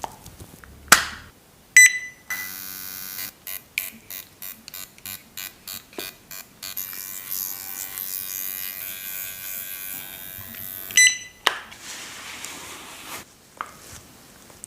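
A small electric skincare device with a vibrating motor: a beep as it switches on, then a buzz pulsing about three times a second, then a steady buzz, and another beep as it switches off. A short hiss follows near the end.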